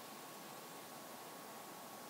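Faint, steady outdoor background hiss, with a thin steady high hum underneath and no distinct calls or knocks.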